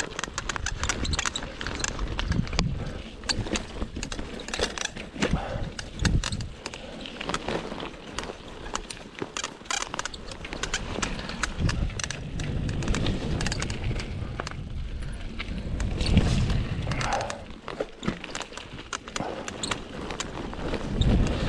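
Cannondale Scalpel mountain bike with a Lefty fork clattering, clicking and squeaking as it rolls over a bumpy trail, with tyre rumble and a louder thump now and then. The squeaks come from the bike itself and still need sorting out.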